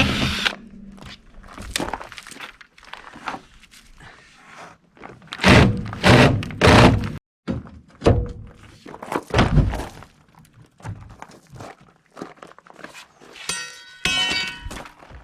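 Heavy thuds and knocks, several loud single impacts a few seconds apart with lighter knocks between, as in demolition work on an RV. A brief high ringing tone sounds near the end.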